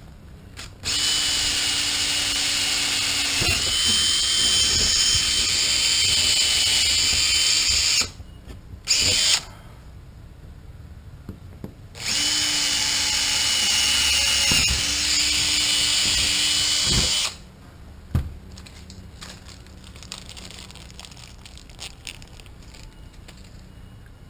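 Cordless drill boring holes with a drill bit: a steady motor whine in two long runs of about seven and five seconds, with a short burst between them, then only faint clicks of handling.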